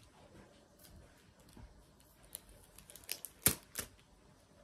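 Sticky tape being handled and picked at with the fingers: faint scattered crackles and clicks, with two sharp snaps about three and a half seconds in.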